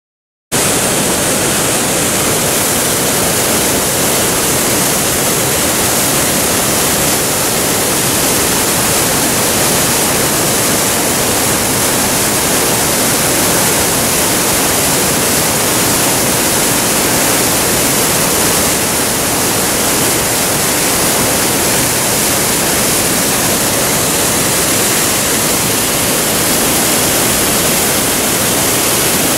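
Whitewater of a waterfall rushing through a narrow rock gorge: a loud, steady rush of water that cuts in abruptly about half a second in and holds unchanged.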